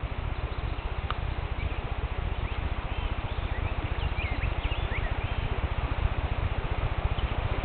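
Outdoor pond-side ambience dominated by a low, fast-fluttering rumble of wind buffeting the microphone, with a few short high bird chirps in the middle.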